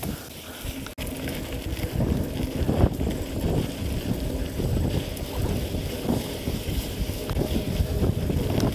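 Wind buffeting the microphone of a camera on a moving mountain bike, mixed with the tyres and bike rattling over a rough dirt track.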